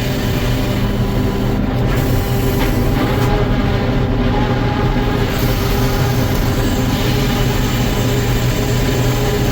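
Sawmill machinery running steadily: a constant low hum with steady tones over it and a high hiss that thins out briefly about two seconds in and again from about three to five seconds.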